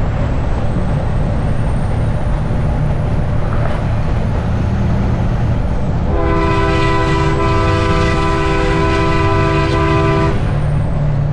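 A multi-tone air horn sounds steadily for about four seconds, starting about six seconds in, over the constant low drone of a semi truck's engine and road noise.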